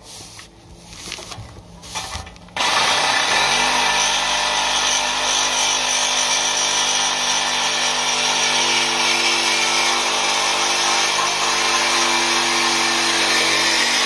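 Milwaukee Fuel cordless reciprocating saw starting about two and a half seconds in and then cutting steadily through a car's rusty steel exhaust pipe to remove the rear muffler, the motor holding an even pitch under load.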